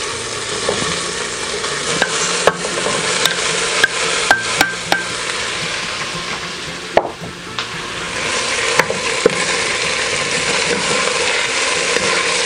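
Boiled beef skin pieces sizzling as they go into hot oil with sautéed onions in a pressure cooker, stirred with a wooden spoon. Several sharp knocks of the spoon against the bowl and pot come in a cluster a couple of seconds in, and the sizzling grows a little louder in the second half.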